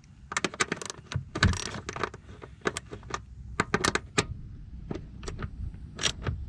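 Irregular sharp metallic clicks and clinks of a wrench as a bolt holding a plastic car cover is tightened, some clicks single and some in quick groups of two or three.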